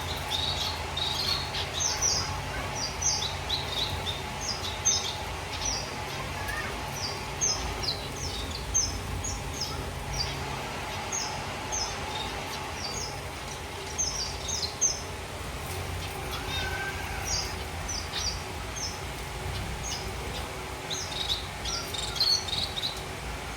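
A colony of zebra finches calling: many short, high chirps from several birds, scattered a few a second throughout, over a steady low hum.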